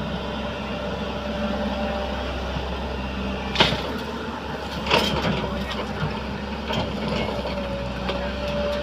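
JCB 3DX backhoe loader's diesel engine running steadily while it digs, with two sharp knocks from the working gear a little under halfway through and about a second later.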